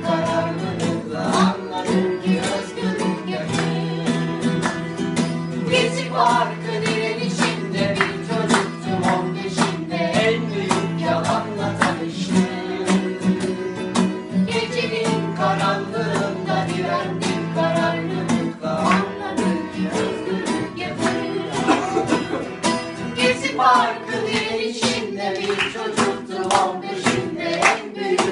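Band music: strummed guitar over a steady percussive beat, with a group of voices singing in chorus at intervals.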